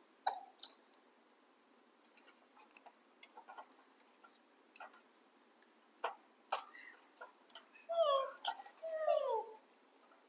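Light scattered clicks of metal tongs on a wire grill rack over a portable gas stove, turning snails, with a short high squeak about half a second in. Near the end come two falling squeaky calls from a young macaque.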